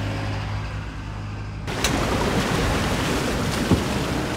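A low steady engine hum from the pickup towing the boat, then, about a second and a half in, a sudden switch to a loud rushing wash of water as the boat slides backwards off its trailer into the water.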